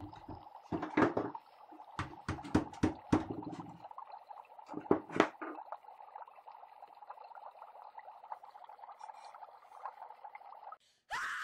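A few sharp knocks and clatters of objects being handled, in clusters, over a steady mid-pitched hum that cuts off suddenly near the end.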